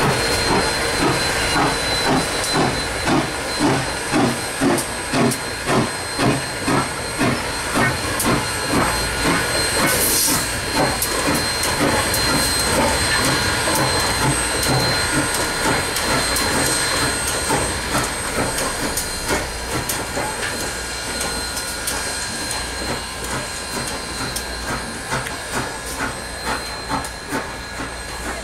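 Southern Railway 630, a 2-8-0 steam locomotive, working slowly across a trestle: exhaust chuffs about two a second over a steady hiss of steam, with a short sharper hiss about ten seconds in. The chuffing grows fainter as the locomotive moves away.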